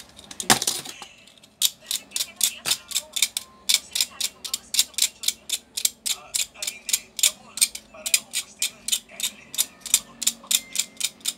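Soldering iron tip scraped rapidly back and forth against a small hand-held cleaner, an even run of short scratchy strokes about three to four a second, after a single knock about half a second in.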